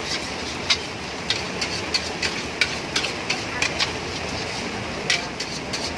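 Metal spatula clanking and scraping against a steel wok in quick, irregular strokes while stir-frying, over a steady rush of background noise.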